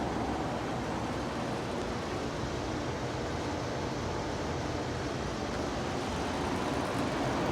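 Outdoor air-conditioner condensing unit running: a steady whoosh of the condenser fan over a low hum.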